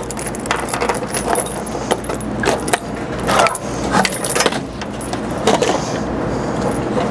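Keys jangling, with irregular metal clicks and rattles, as a commercial dryer's control computer is unlocked and slid out of its sheet-metal panel.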